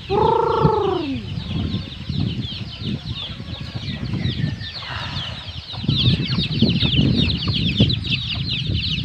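A flock of chickens and turkeys calling, clucking and flapping their wings. One loud call rises and falls in the first second. From about two seconds in, a dense stream of quick, high chirps runs over low rustling and thumps.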